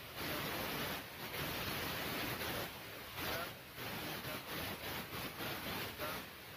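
Loud hiss over a man's voice, which is faint and buried beneath it. The noise comes in stretches broken by short dips every second or two, like phrases and pauses.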